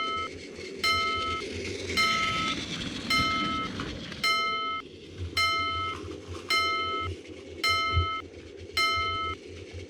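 Railroad crossing warning bell ringing over and over, about one clang a second, with the low rumble of a train running past.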